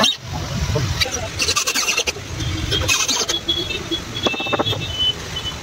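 Handheld electric drill run in two short bursts, about a second and a half and three seconds in, drilling or driving screws into MDF panels of a woofer box, over a steady low rumble.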